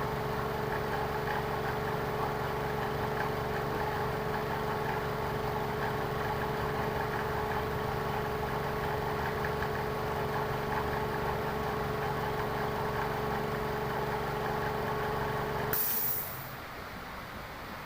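A motor runs steadily with an even, multi-toned hum. About sixteen seconds in it stops with a short burst of hissing air.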